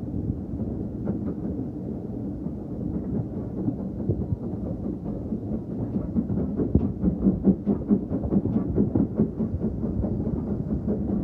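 Heritage railway train running along the track: a steady low rumble, with a quick run of short clicks from the wheels in the second half.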